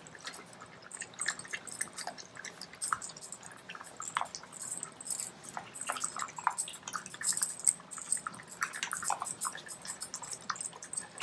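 Cavalier King Charles spaniels eating from ceramic bowls: a steady run of irregular wet smacks and clicks of chewing and licking.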